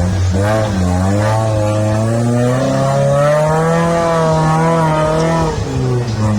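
Off-road buggy engine revving up over about three seconds, held at high revs with the pitch wavering under load, then dropping back near the end.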